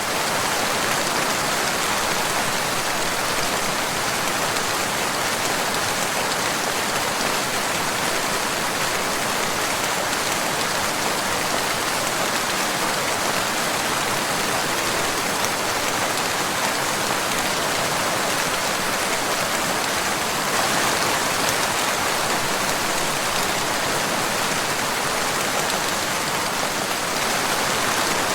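Steady rain falling, a constant even hiss of many drops.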